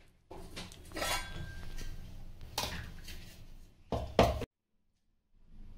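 A steel spoon scraping and clinking against a steel kadhai while stirring and scooping boiled rice, in separate strokes, with two louder knocks a little after four seconds in; then the sound cuts off suddenly.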